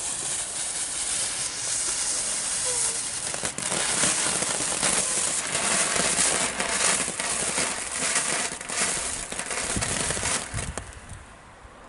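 Small firework fountain burning: a loud steady hiss of spraying sparks, with dense crackling, that dies away about ten and a half seconds in.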